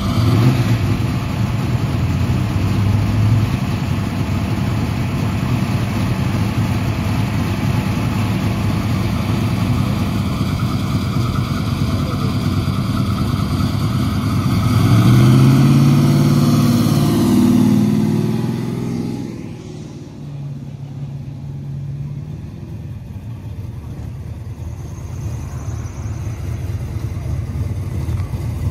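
Car engines running at a car meet, with one engine getting louder and rising in pitch about halfway through, then falling away, leaving a lower steady engine sound.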